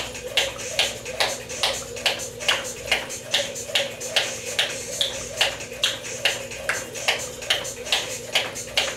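Jump rope skipping: the rope slaps the floor and sneakers land in a steady, even rhythm of about two and a half strikes a second.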